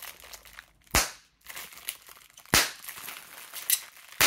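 Bubble wrap popped between the fingers: two loud sharp pops about a second and a half apart, then smaller pops near the end, with faint crinkling of the plastic in between.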